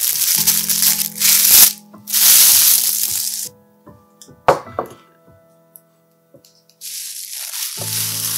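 Plastic wrap crinkling loudly as it is twisted and pulled tight around a wrapped pork belly roll, then a single knock as a glass baking dish is set down on a wooden cutting board about four and a half seconds in, and more crinkling of the wrap near the end as the roll goes into the dish. Background music plays throughout.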